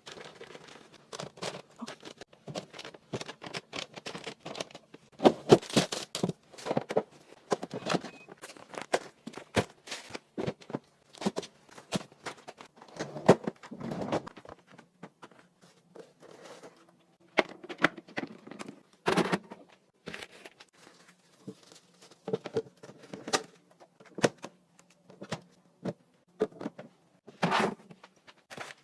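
Irregular clicks, taps and light knocks with some rustling, as of household items and packaging being handled and set down.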